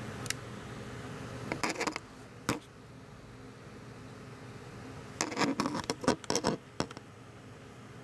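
Camera handling noise against a plastic tarantula enclosure: scattered taps and scratches, a few in the first two and a half seconds and a longer scratchy run about five to seven seconds in, over a steady low hum.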